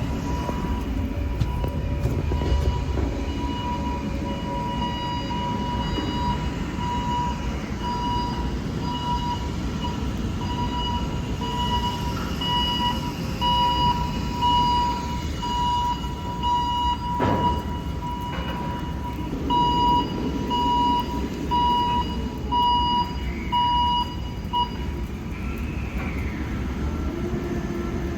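Container-handling crane's warning alarm beeping in a steady, even run while it lowers a container onto the truck, stopping near the end. Under it is the low rumble of an idling truck engine, with one heavy clunk partway through.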